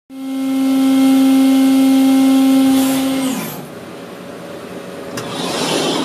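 Brother S700X1 CNC machining center spindle whining at a steady high pitch, then winding down with a falling tone a little past three seconds in; a steady hiss follows and swells near the end.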